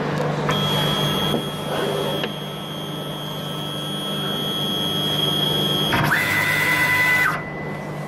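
Stepper motors of a CNC router's Z axis whining as they lower the bit toward the tool-setting plate during automatic tool calibration, over a steady low hum. About six seconds in, the whine gives way to a different tone that rises, holds for about a second and stops, as the axis retracts.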